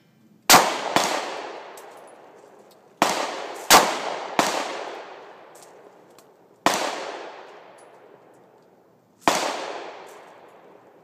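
Gunshots from a 9mm pistol carbine, about seven shots at uneven spacing, some in quick pairs. Each shot trails off in a long echo.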